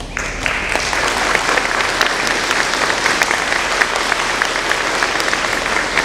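Audience applauding: many hands clapping, starting suddenly and holding steady.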